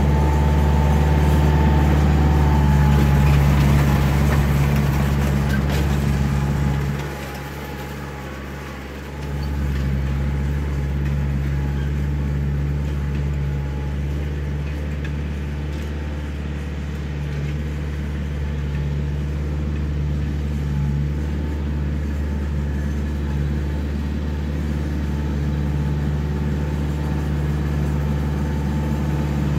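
Backhoe's diesel engine running steadily with a low hum. It drops in level for a couple of seconds about seven seconds in, then picks back up.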